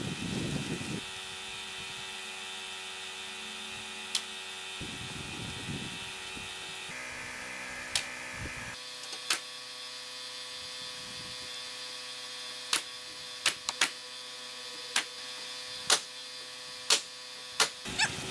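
Sharp single shots of a pneumatic roofing nailer fastening shingles: about a dozen, irregularly spaced, with several in quick succession in the second half, over a steady mechanical hum.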